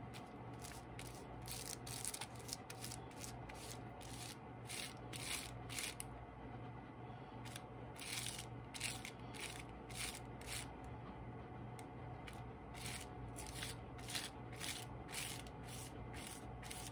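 Foam brush stroking wet glue over tissue paper on a sheet of paper: a faint run of short, scratchy swishes, about two a second with brief pauses.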